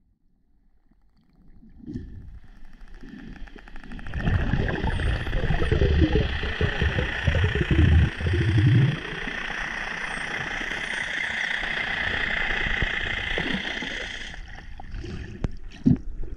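Underwater sound with dolphins: a steady hiss and hum through the water, like a boat's engine heard below the surface, with heavy low rumbling and knocking from about four to nine seconds in. Faint high whistles, each dipping and rising in pitch, come twice over the top.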